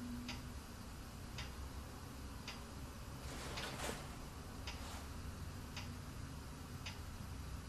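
Wall clock ticking steadily, about one tick a second. About three and a half seconds in, a changing-room curtain is drawn back with a brief swish and a short metallic scrape.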